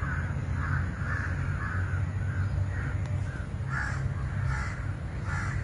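Crows cawing, a run of short calls about two a second, over a steady low rumble.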